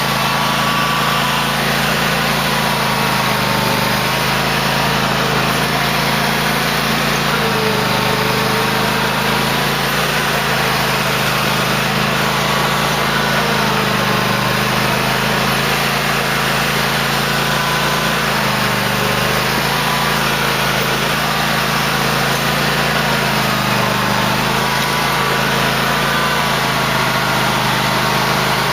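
Cub Cadet LT1050 lawn tractor engine running steadily while plowing snow, its pitch sagging briefly every few seconds as the engine takes load.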